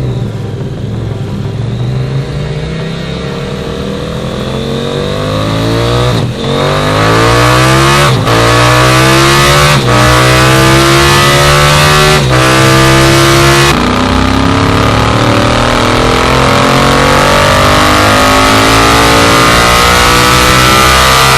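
KTM 790 Duke's parallel-twin engine revving hard on a dyno through a titanium full racing exhaust, pulling up through the gears. The pitch climbs with brief breaks at the upshifts about six, eight, ten and twelve seconds in, then holds a long high-revving pull.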